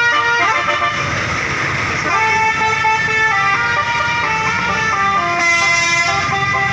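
Bus telolet horn playing a melody: a string of held, stepped notes one after another, with a short burst of noise about a second in.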